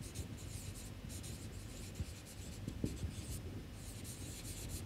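Marker pen writing on a whiteboard: faint scratchy strokes in short runs, with a couple of small knocks of the pen against the board.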